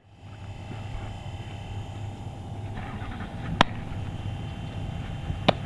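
Steady low outdoor rumble with two sharp smacks: the louder, about three and a half seconds in, is a softball popping into a leather fielding glove just before the throw, and a second comes near the end.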